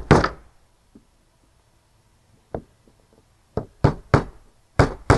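Hammer tapping small frame nails through a wooden beehive frame's top bar into the sidebar: a strike at the start, a single tap about two and a half seconds in, then a run of about five quicker taps near the end as a nail is driven home.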